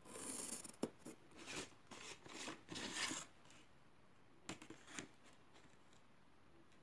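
Pencil scratching along a ruler on paper, several drawn strokes over the first three seconds, then two light taps about halfway through.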